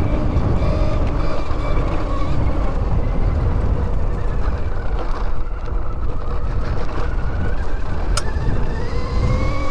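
NIU XQi3 electric motorcycle riding on a dirt trail: its electric motor whines over a heavy rumble of tyres and wind. The whine falls in pitch through the first half and rises again near the end as the bike speeds up. A single sharp click comes about eight seconds in.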